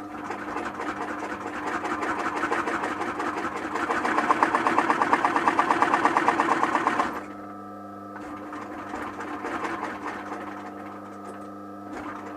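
Sewing machine stitching leather, running in a fast, even rhythm that grows louder and quicker until it stops abruptly about seven seconds in. Quieter, uneven stretches of running follow over a steady motor hum.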